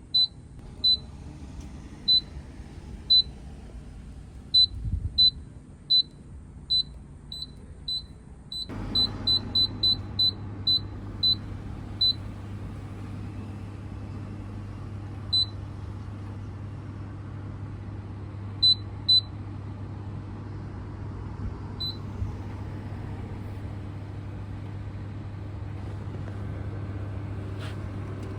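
Hoshizaki HMN-18A commercial microwave oven: a string of short high keypad beeps, then about nine seconds in the oven starts heating with a steady low hum and fan noise that keeps running, with a few more beeps over it.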